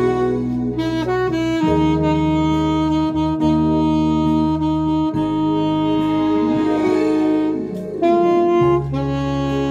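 Alto saxophone playing a slow ballad melody with long held notes, over a backing track with sustained bass notes beneath it.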